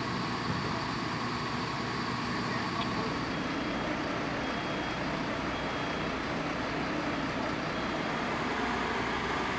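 Steady running noise of fire engines parked at the scene, engines and equipment going without pause, with faint voices in the background.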